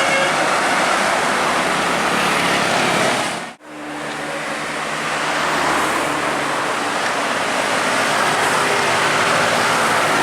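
Road traffic noise: a heavy vehicle passing close on the road, a steady rush with a low engine note. The sound cuts out suddenly about three and a half seconds in and fades back up.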